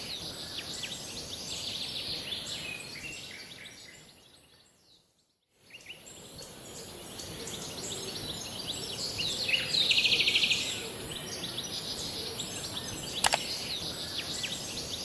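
Outdoor ambience of many birds chirping over a steady high hiss. The sound fades to silence about five seconds in and comes back. About ten seconds in there is a loud, fast trill lasting under a second, and near the end a single sharp click.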